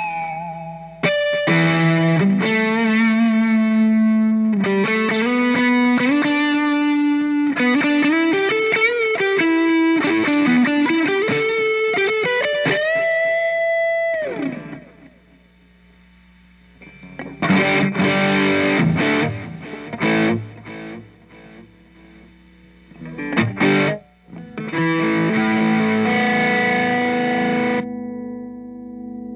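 Electric guitar played through an Orange Crush 35 LDX combo amplifier: a single-note lead line ending in a long held, bent note about halfway through, then a few separate chords struck and left to ring.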